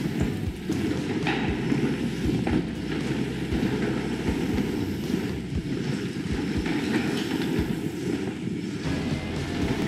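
Mountain bike rolling fast over a wooden indoor trail: a steady rumble of tyres on the boards with wind on the camera microphone, and irregular short knocks and rattles from the bike.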